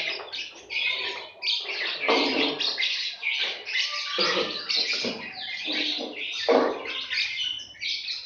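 Lovebird chattering in a long, fast, near-continuous run of high chirps, broken by a few short pauses and with a few louder notes.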